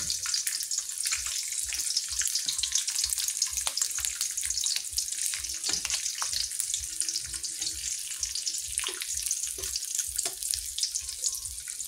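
Dried yellowstripe scad frying in shallow oil in a wok: a steady high sizzle with scattered crackles and spits.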